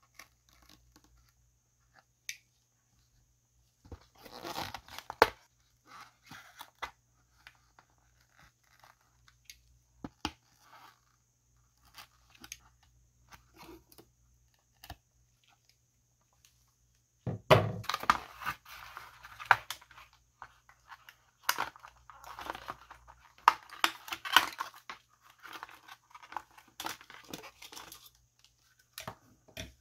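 Cardboard packaging being handled and pulled apart: scattered small clicks of plastic tabs being worked out with pliers, then, over the second half, a long stretch of dense rustling, crinkling and tearing of cardboard with a few sharper knocks as an action figure is freed from its cardboard insert.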